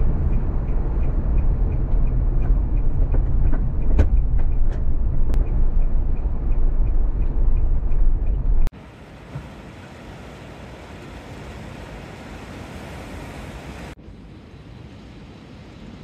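Camper van driving, heard from inside: a loud low road-and-engine rumble with scattered small clicks and knocks. About two-thirds of the way through it cuts off abruptly to a much quieter steady hiss.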